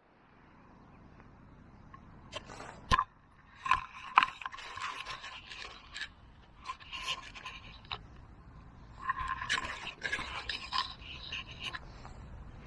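Metal detector search coil scraping and rustling over the ground, with irregular sharp clicks and short steady detector tones sounding among the sweeps.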